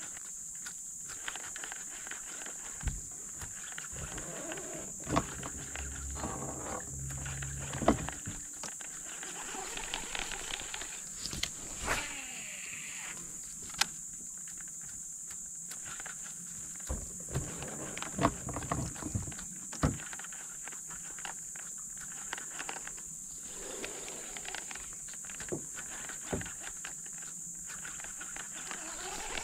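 Small fishing boat with the angler moving and handling tackle: scattered knocks and clicks on the hull, over a steady high-pitched drone.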